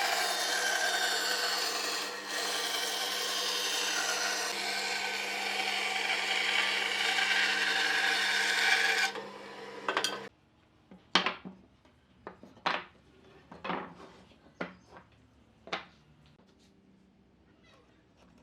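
A power tool works wood with a rasping noise over a steady motor hum, then stops suddenly about ten seconds in. About ten light knocks and taps on wood follow at uneven intervals.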